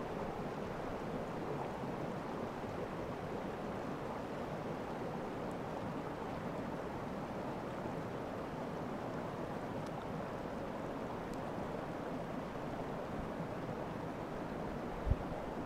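Steady rushing of running water, even throughout, with a brief low thump near the end.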